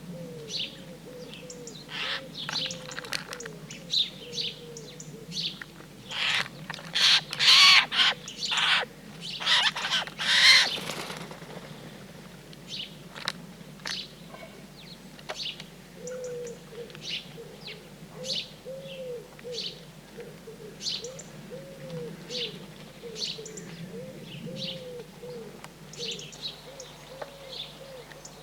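Wild birds at a garden feeder: repeated bursts of wing flapping mixed with chirps, busiest and loudest in the middle. A series of short, low repeated notes runs faintly underneath.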